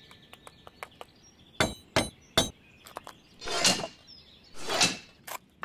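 Three sharp knocks on a wooden door, close together about a second and a half in, followed by two short swishing noises.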